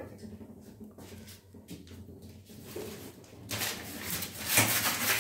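Polythene sheet crinkling as it is handled around a hand-pressed maize-flour roti, faint at first and loud from about three and a half seconds in.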